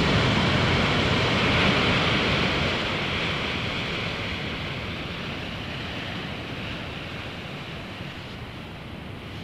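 Steady rushing noise with no distinct events, fading gradually from about two and a half seconds in.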